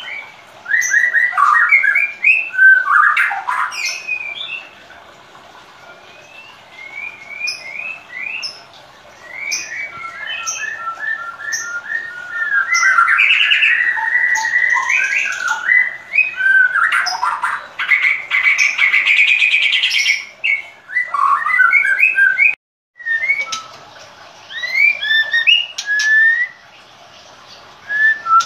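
White-rumped shama singing: a fast, varied run of whistled phrases with rising and falling notes, broken by two longer rasping, rattling stretches. The sound cuts out completely for a moment about three-quarters of the way through.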